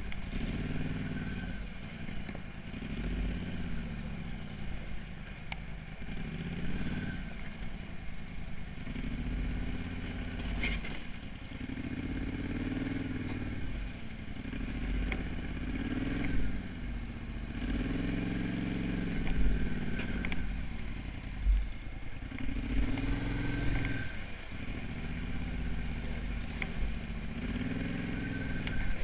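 Polaris Scrambler 850 ATV's twin-cylinder engine revving up and dropping back in repeated surges every two seconds or so as it picks its way over rocks in a creek bed, with occasional knocks and clatter from the rocks under the machine.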